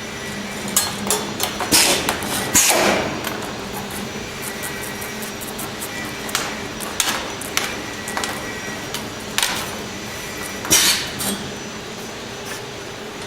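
AOK SIII channel letter bending machine running on stainless steel strip: a steady hum with a few fixed tones, broken by about a dozen sharp metallic clacks and short hisses at uneven intervals as the head works the strip.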